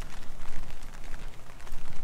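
Heavy rain with a dense, irregular patter of drops striking close by, over a steady low rumble.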